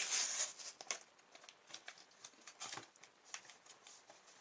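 Plastic blister packaging being handled and pried open: a short crinkling rush at the start, then scattered clicks and crackles of the plastic.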